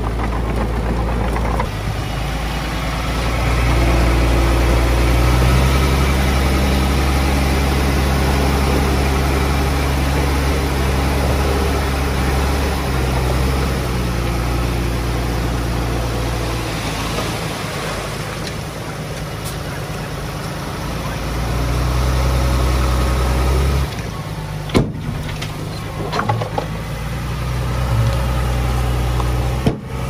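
Diesel engine of heavy earthmoving equipment running steadily, its level rising and easing over the stretch. A few sharp knocks come near the end.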